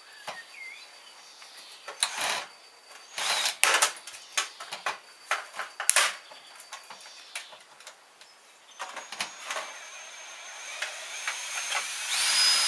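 Power drill-driver run in several short bursts, with a longer run and a rising whine near the end, as screws are driven out of a washing machine's casing.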